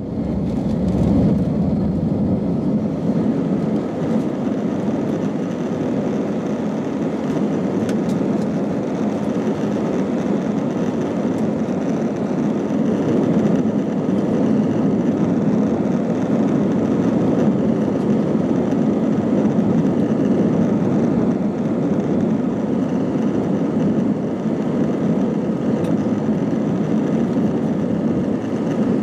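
Airbus A320 jet engines heard from inside the cabin during the takeoff roll: a loud, steady roar that comes up sharply at the start and then holds, with a faint high whine above it.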